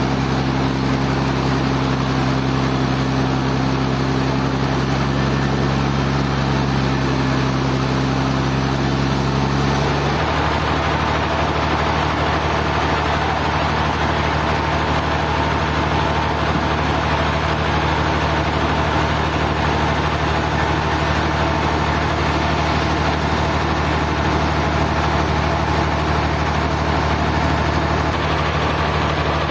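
Sawmill machinery running steadily with a constant low hum. The pitch and tone change abruptly about ten seconds in, then hold steady again.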